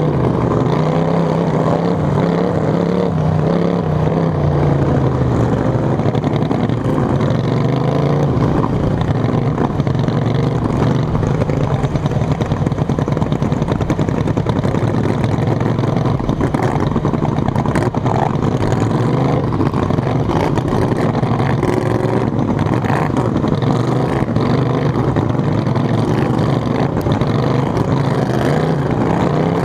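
Racing lawn mower engine running hard, heard from on board in a dirt-track race. Its note rises and falls for the first few seconds through a turn, then holds steady, with the other mowers' engines running close by.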